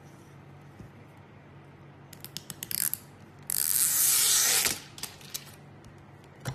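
Thin plastic film being pulled and peeled during a tempered-glass screen protector fit: a quick run of crackles that grows louder, then a loud steady rasp for about a second, and a single click near the end.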